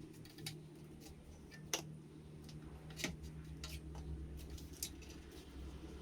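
A handful of light metallic clicks and clinks from tools and exhaust parts being handled, the sharpest a little under two seconds in, over a low steady hum.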